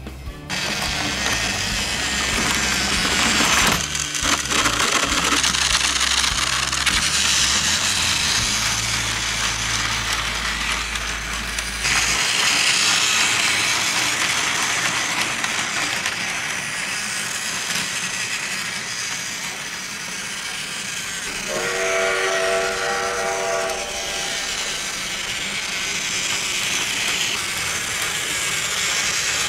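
Battery-powered Plarail toy train running on plastic track, a steady whir and rattle of its motor and wheels. About two-thirds of the way through, a whistle-like tone sounds for about two seconds.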